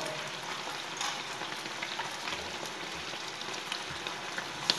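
A thick mẻ (fermented rice) and egg mixture sizzling and bubbling steadily in a frying pan on a gas burner, with small crackling pops. One sharp click comes near the end.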